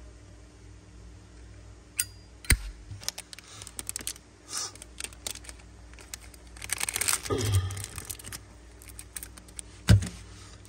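Zippo lighters being handled: scattered sharp metallic clicks and clacks, with scraping and rustling in the middle and one loud click near the end.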